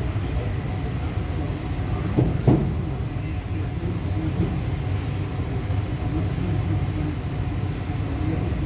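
EP2D electric multiple unit in motion: a steady low rumble of the ride, with one short knock about two and a half seconds in.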